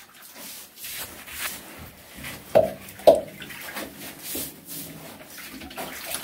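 Brush dabbing and scrubbing liquid waterproofing onto a rough concrete bathroom wall, in irregular wet strokes, with two louder knocks about half a second apart midway.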